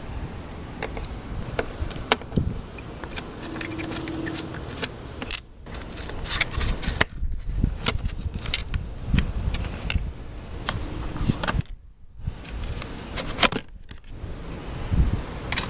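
Hand work on plastic trim clips and a plastic cover panel at a BMW 530i's strut tower: a string of sharp clicks, scrapes and light rattles, broken by a few sudden short drop-outs.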